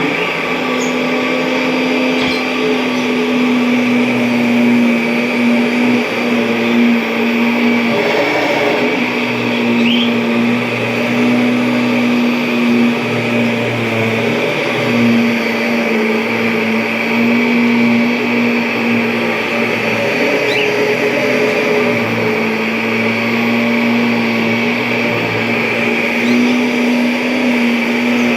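A Kirby G5 upright vacuum cleaner running steadily, its motor hum wavering slightly in pitch under a steady rush of air, with a few faint ticks.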